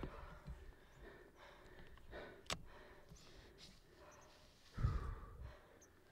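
A hiker's faint breathing after a steep climb at altitude, with a heavier sigh of breath near the end and a single sharp click about two and a half seconds in.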